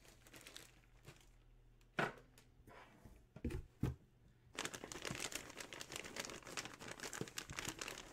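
A few light knocks of a cardboard box being handled and its lid lifted. About halfway in, steady crinkling of the plastic bag around a jersey starts as it is handled inside the box.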